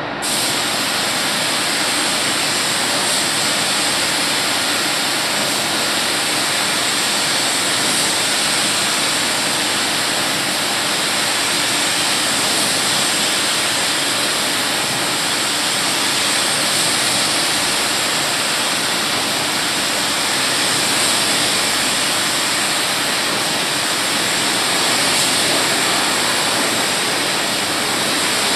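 Compressed-air paint spray gun hissing steadily as it sprays paint onto a car body. The hiss switches on suddenly at the start.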